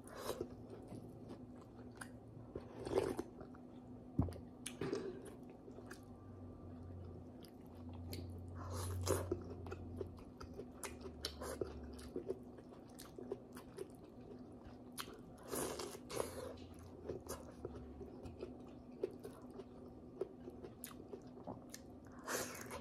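Close-up eating sounds of boiled pork hock and vegetables eaten by hand: wet chewing and biting with mouth clicks and smacks, and a few louder bites scattered through. A faint steady hum runs underneath.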